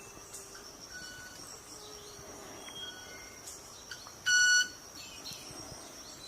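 Club-winged manakin making its wing sound once, about four seconds in: a short, loud, pure ringing note under half a second long. The male makes it by rubbing its wing feathers together at very high speed as a courtship display to attract a female. A steady high insect whine and a few faint bird chirps go on underneath.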